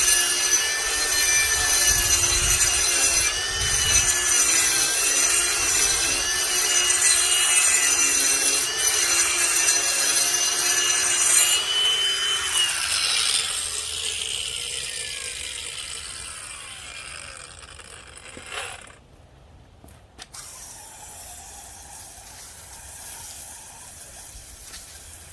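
Ryobi cordless brushless angle grinder with a diamond wheel grinding concrete, its motor whining steadily with the pitch wavering slightly under load. About twelve seconds in it is switched off and the whine falls steadily in pitch and fades over several seconds as the wheel spins down; a couple of faint clicks follow.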